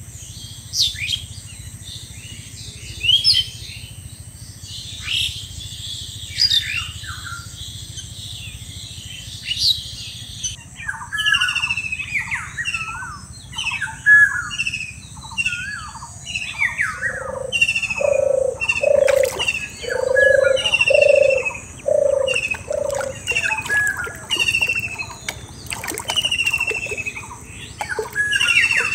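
Several birds chirping and calling, with short high chirps throughout, busier from about ten seconds in. In the middle, a bird gives a run of about eight low, evenly spaced notes.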